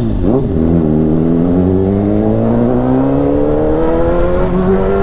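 Honda CBR600RR inline-four engine through a Yoshimura exhaust: a quick rev blip at the start, then a long, steady climb in engine pitch as the bike accelerates.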